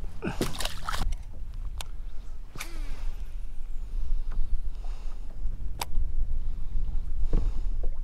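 Wind rumbling on the microphone, with a handful of scattered knocks and clicks from gear being handled on a fishing kayak.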